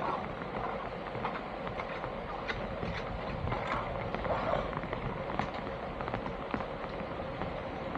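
Irregular clicks and rattles over a steady background hum with a faint constant tone.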